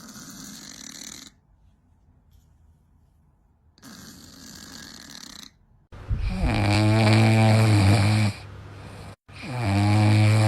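An animal snoring: two soft, airy snores, then from about six seconds in two much louder snores, each about two seconds long with a low steady hum.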